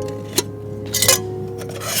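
Aluminium cookware being handled: a light click, then two short scraping rubs of metal pieces, over background music.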